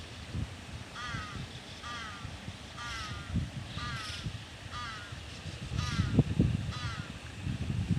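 A crow cawing over and over, about once a second, eight times or so. Low thumps grow louder over the last two seconds.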